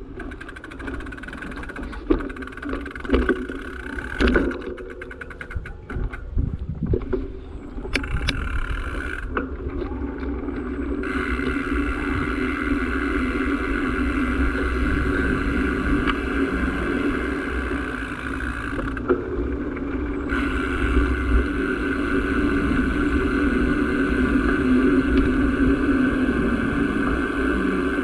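A small vehicle's engine running steadily while moving, settling into an even hum after about eight seconds and slowly growing louder, with several knocks and rattles in the first few seconds.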